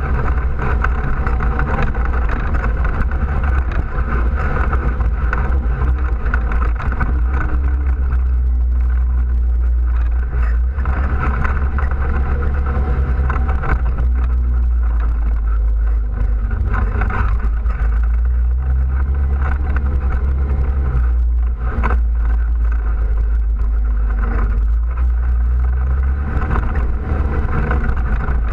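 Off-road vehicle's engine running steadily while driving along a gravel trail, its pitch rising and falling a little with speed, over tyre and wind noise.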